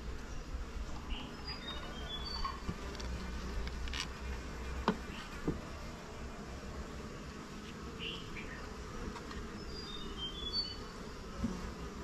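Honeybees buzzing around wooden hive boxes, with a few sharp knocks about four seconds in and twice more soon after as the boxes are shifted.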